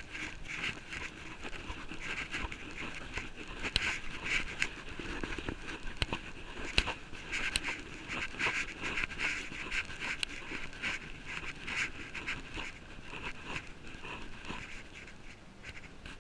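Mountain bike rolling along a paved road: steady tyre and riding noise that swells and fades, with scattered small clicks and rattles from the bike.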